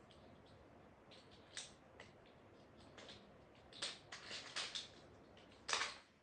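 Plastic Lego bricks being handled and pressed together: scattered light clicks and short rattles. There is a cluster of them after about four seconds, and a louder rattle shortly before the end.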